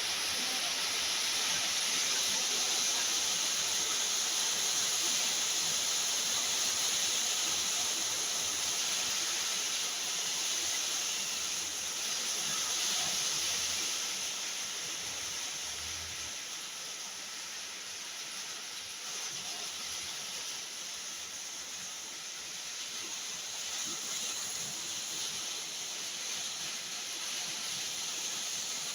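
Heavy tropical downpour: rain pouring down hard in a dense, steady hiss, easing slightly about halfway through and then building again.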